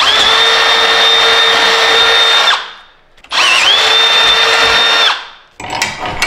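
Cordless drill running a twist bit through a welded steel bracket to clean out a hole distorted by welding. It gives two steady whining runs, about two and a half and two seconds long, with a short pause between. Near the end come a few light metallic clinks.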